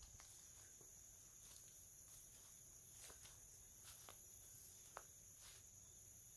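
Near silence: faint outdoor ambience, a steady high hiss with a few soft clicks.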